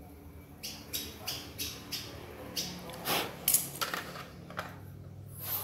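Irregular sharp clicks and scrapes, several a second, from a satellite decoder's circuit board being handled and worked at while a tiny shorted surface-mount capacitor is picked off it.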